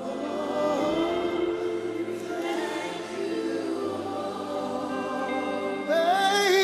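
Congregation and worship team singing a slow gospel worship refrain over sustained backing chords and low held bass notes. Near the end a louder lead voice comes in, singing with vibrato.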